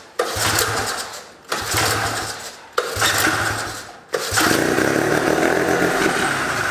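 A 1971 Arctic Cat Panther's 303 Wankel rotary engine being cranked by its pull-starter: four hard pulls, each a sudden chugging turnover. The last pull keeps it turning for about three seconds, but it does not catch. The owners trace the no-start to a cracked fuel pump diaphragm.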